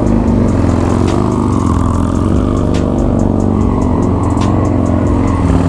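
Motorcycle engines running, mixed with music that has a steady beat.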